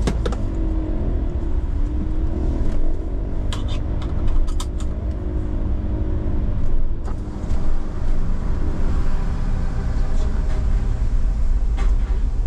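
Citroën Jumper camper van driving slowly, heard from inside the cab as a steady low rumble of its diesel engine and tyres. A few sharp knocks and rattles come as the wheels roll over the ferry deck plates and onto the steel ramp.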